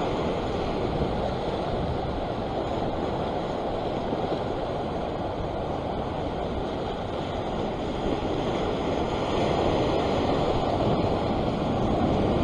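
Steady rush of ocean surf washing around a sea rock ledge, a little louder near the end.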